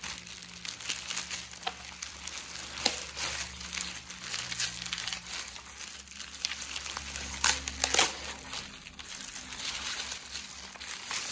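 Clear plastic foil bag crinkling and crackling as it is pulled open and a backpack is worked out of it, with a few sharper crackles about three seconds in and again around eight seconds.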